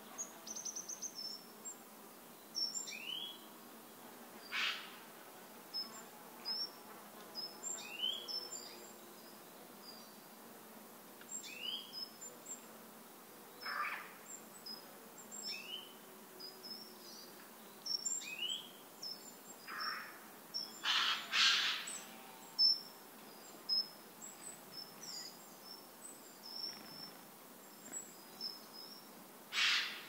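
Forest ambience of several wild birds calling: short high chirps throughout, a short rising call repeated every few seconds, and a few louder, harsher bursts, the loudest just past the middle, over a faint steady hiss.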